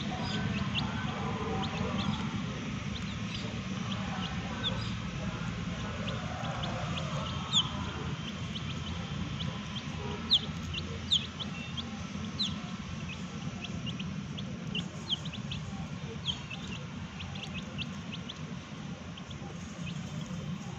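Young chicks peeping: many short, high chirps scattered throughout, a few of them louder, over a steady low background hum.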